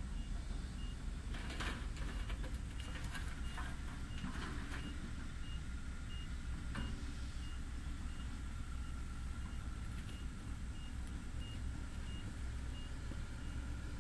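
Excavator engine running with a steady low rumble while a warning beeper sounds a regular run of short high beeps. Wood and debris clatter and knock in the first half, with one sharp knock about seven seconds in.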